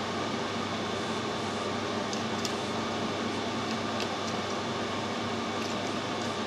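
Steady machine hum and hiss, with a few faint ticks.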